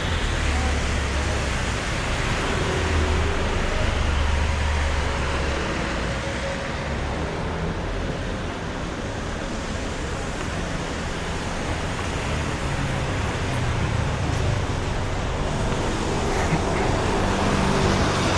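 Steady city street traffic noise, with a heavier low engine rumble from a passing vehicle during the first few seconds.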